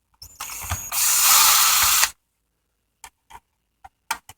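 Cordless power screwdriver running for about a second as it backs out a screw from a Roomba's cleaning-head module, starting softly and then running at full speed, followed by a few light clicks of handling.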